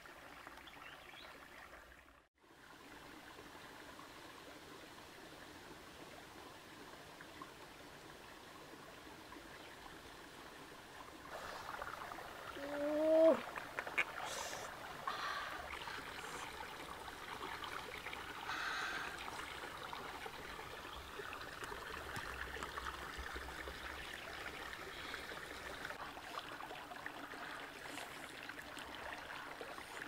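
Steady running water, like a small stream, that cuts out briefly about two seconds in and grows louder about eleven seconds in. A short rising pitched call sounds about thirteen seconds in.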